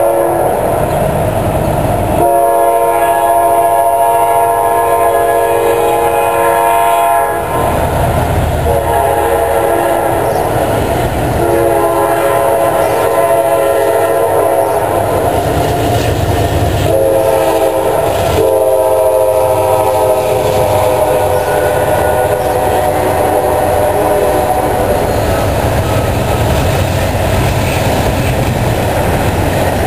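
CSX freight locomotive's air horn sounding the grade-crossing signal as a several-note chord. After the tail of one blast come two long blasts, a short one, then a long one. The low rumble of the passing diesel train runs underneath.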